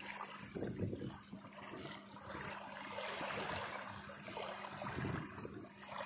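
Shallow water rippling and trickling over rocks in a steady wash.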